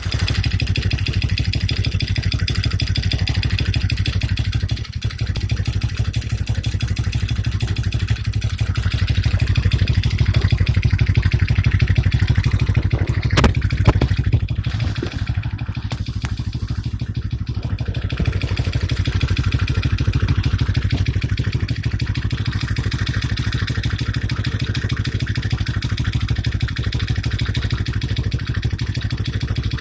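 Small engine of a Chinese ATV running steadily at a fairly even speed, with a couple of sharp clicks about halfway through.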